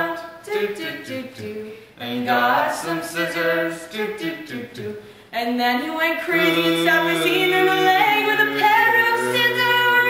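Several voices singing a cappella in harmony, in long held phrases with brief breaks about two and five seconds in.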